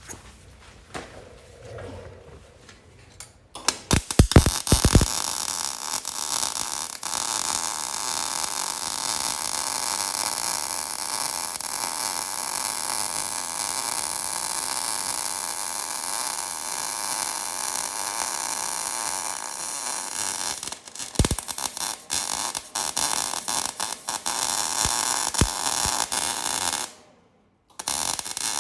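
MIG welding arc running .035 wire: a steady frying crackle that strikes up with a few sharp pops about four seconds in, runs evenly for over twenty seconds, then stops near the end and briefly starts again.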